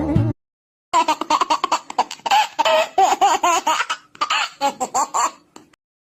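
A sung note cut off abruptly, then, about a second in, a long run of high-pitched laughter in quick short bursts that thins out and stops near the end.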